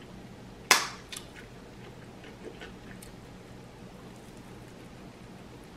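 Close-miked mouth sounds of eating a cheeseburger on toasted multigrain bread: one loud sharp bite just under a second in, then a few soft chewing clicks that die away after about three seconds.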